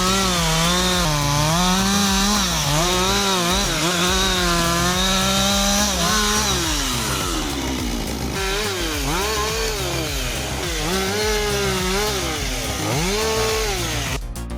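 Chainsaw running hard with its engine pitch repeatedly dipping and rising as it cuts. It winds down about halfway through, revs up again and keeps surging, then stops just before the end.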